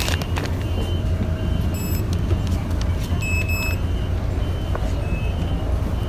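Inside a city bus: the steady low rumble of the bus engine, with short electronic beeps from the fare card reader as cards are tapped, about two seconds in and again about three and a half seconds in.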